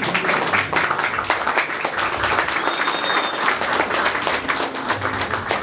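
An audience applauding: many hands clapping together in a dense, even patter.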